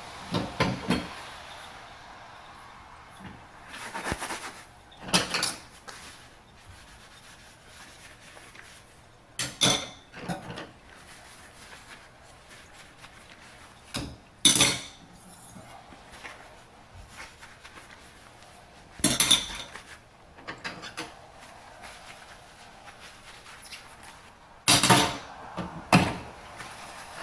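Dishes and cutlery clinking and clattering as they are washed, in short bursts every few seconds.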